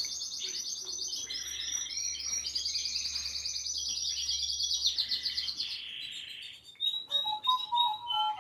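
Samsung Galaxy S3 ringtone made of recorded birdsong: fast, high chirping trills repeated for about six seconds. It stops, and about a second later a different tone starts with short, bright electronic notes.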